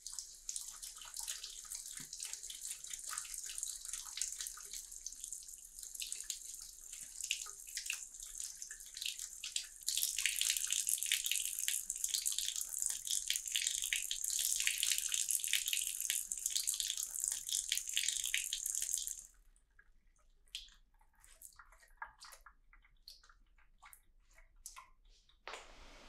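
Kitchen tap running water over a Dyson V15 Detect vacuum's filter unit as it is rinsed by hand, a steady splashing hiss that grows louder about ten seconds in. The water then cuts off suddenly, leaving a few scattered drips and small knocks.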